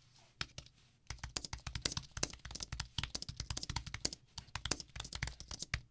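Apple Magic Keyboard with Touch ID being typed on at speed: a fast, irregular run of light clicks from its low-profile scissor-switch keys, starting about a second in.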